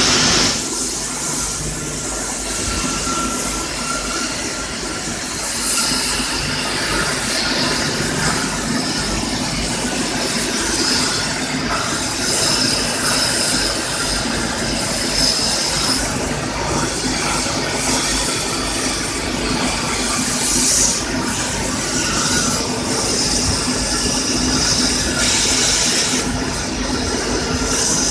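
Plasma arc of a Sato CNC plasma cutting machine cutting, a loud continuous hiss with a shrill high-pitched edge that grows stronger in stretches of a few seconds, over a steady low hum.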